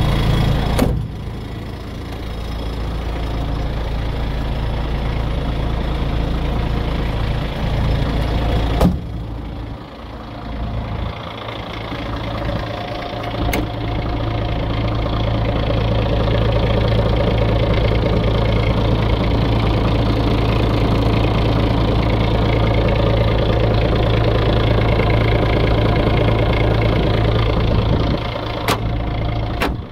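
Renault G300 fire engine's diesel engine idling steadily, its hum rising and falling in loudness, with a few sharp knocks, the strongest about 9 seconds in.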